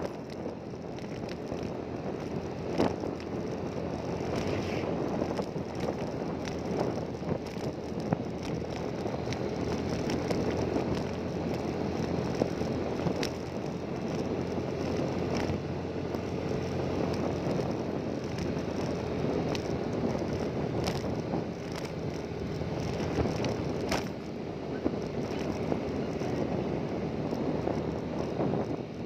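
An engine running steadily while travelling, with wind buffeting the microphone and a few short clicks.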